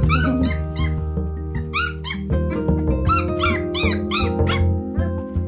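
Background music with held low notes, over high squeaky yips and whimpers from young Estrela Mountain Dog puppies that come in quick runs.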